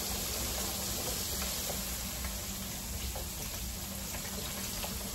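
Thin pork chops coated in fish-fry mix frying in hot oil: a steady, even sizzle.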